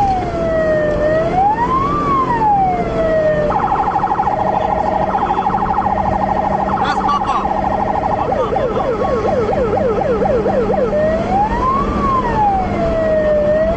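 Police car siren heard from inside the chasing patrol car. It gives a slow rising-and-falling wail about every two seconds, then switches about three and a half seconds in to a rapid pulsing tone, then about eight seconds in to a fast yelp of several sweeps a second, and returns to the slow wail near the end. The patrol car's engine and road noise run underneath.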